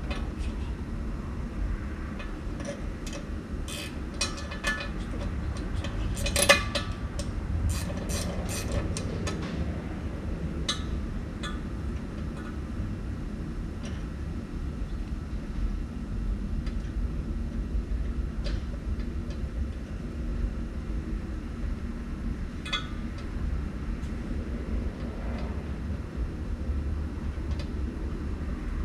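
Scattered metal clinks and knocks from tools and parts being handled during work on a car, bunched in the first third with a sharp loudest knock, over a steady low rumble.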